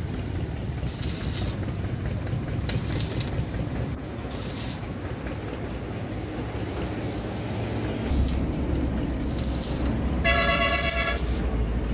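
Short bursts of crackling hiss from arc welding on a motorcycle's rear luggage rack, over a steady low rumble. About ten seconds in, a vehicle horn sounds once for about a second over a running engine.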